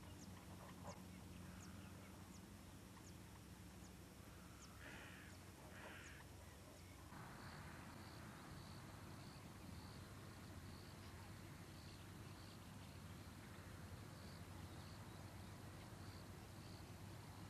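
Faint wetland ambience of wild birds calling: a few short calls in the first half, then a steady series of short high notes about one and a half a second, over a low steady hum.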